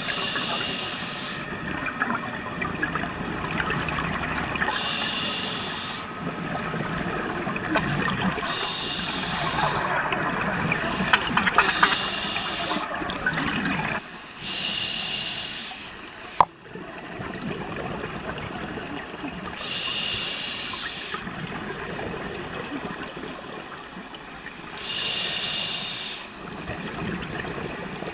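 Scuba diver's breathing through a regulator, heard underwater: seven gurgling bursts of exhaled bubbles a few seconds apart, with a steady hiss between them. One sharp tap about sixteen seconds in.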